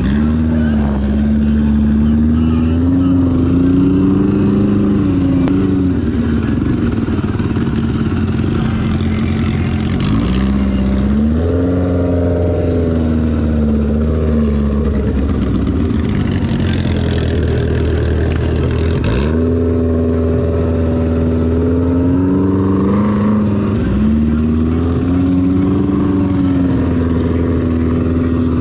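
Side-by-side off-road vehicle's engine running continuously while driving, its pitch rising and falling as the throttle is worked. The pitch drops sharply and climbs back a few times.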